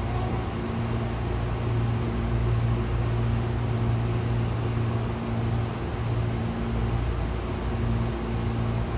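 Steady low electrical hum with even air noise inside a stationary Hankyu 6000 series commuter train standing with its doors open: the idling train's onboard equipment and air conditioning running.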